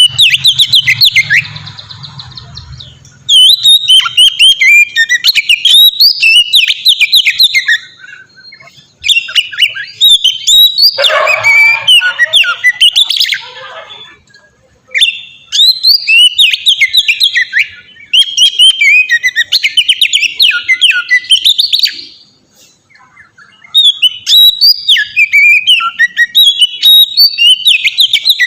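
Oriental magpie-robin (kacer) singing loudly in full, open song: bouts of rapid, varied whistled notes a few seconds long, broken by short pauses.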